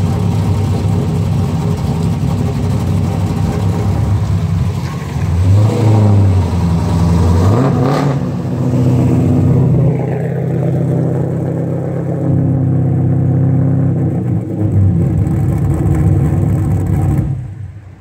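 Cammed 2001 SS's engine running on a cold start, revved up twice, about five and eight seconds in, then idling until it shuts off suddenly near the end.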